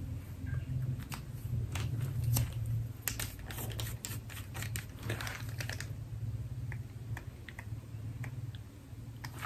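A run of light clicks and taps from handling a lipstick crayon and its cap, dense at first and turning to small, lighter ticks in the second half, over a steady low hum.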